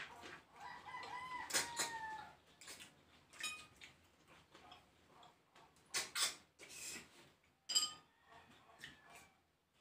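A rooster crows once in the background, starting about half a second in. Around it are short, scattered eating noises from a hand-eaten meal of snails in coconut milk and crab: sucking and clicks of shells.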